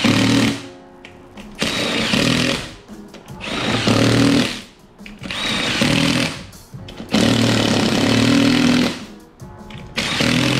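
Cordless drill/driver running in repeated short bursts, about six in all, the longest nearly two seconds, as it runs down the bolts of an ATV wheel's beadlock ring.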